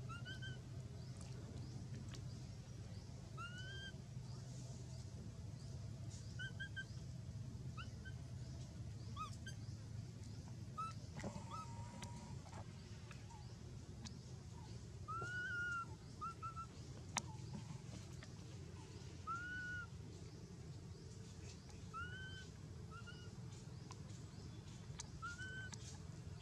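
Short high-pitched calls, each rising and falling, repeated every second or two.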